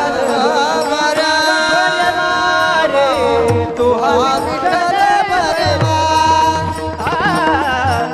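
Marathi devotional bhajan music: a singer draws out long, wavering, ornamented notes without clear words, over steady held accompaniment and a drum beat.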